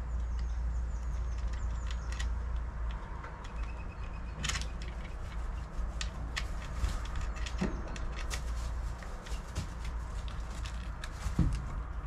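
Scattered light clicks and knocks of a wooden bird-feeder arm with metal fittings being handled and fitted, with a louder knock near the end, over a steady low rumble.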